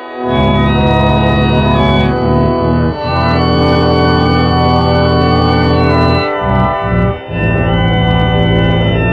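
Organ playing loud sustained chords over a deep bass. The chords change every second or two, with a few brief breaks between them.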